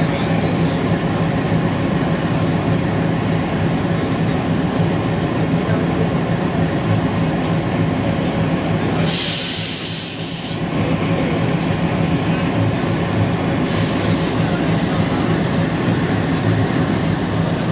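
ALCO diesel locomotive's 251-series engine idling with a steady low hum. About nine seconds in there is a loud burst of compressed-air hiss lasting about a second and a half.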